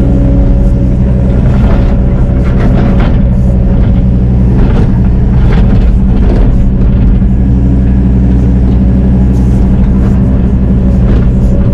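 Excavator's diesel engine running steadily under load, with scattered knocks and clatter from the machine working dirt.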